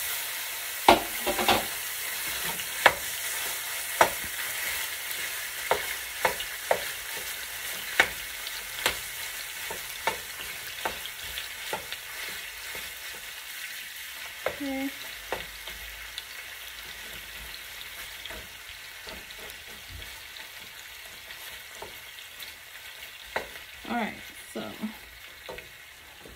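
Metal slotted spoon knocking and scraping against a pot while breaking up raw ground beef, with irregular sharp clinks that come more often and louder in the first half. Under them is a steady soft sizzle of the beef starting to fry in a little oil.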